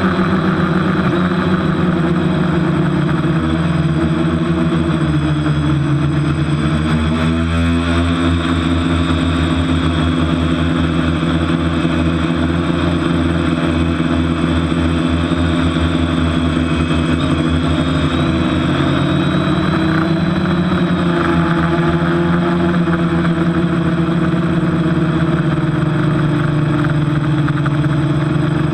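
TBS Discovery quadcopter's electric motors and propellers humming steadily as it flies, heard from its onboard camera, the pitch dipping and rising with the throttle several times. It is flying on a propeller the owner calls dodgy.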